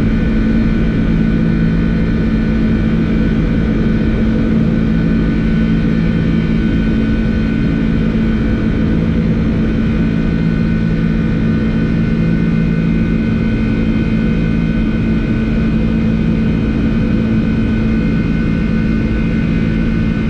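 Boeing 747-400 flight-deck noise during the initial climb just after takeoff: a loud, steady roar of engines and airflow with a constant low hum.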